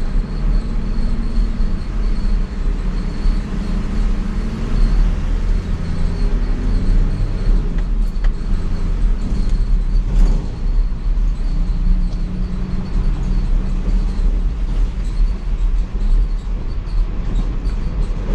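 Nissan Patrol pickup's diesel engine running steadily under load as the truck climbs a steep hill, heard from inside the cab, with a couple of short knocks partway through.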